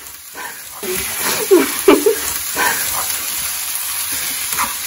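Kimchi fried rice sizzling in a hot frying pan as it is stirred with a wooden spatula, growing louder about a second in. A few short voice-like sounds rise over the sizzle.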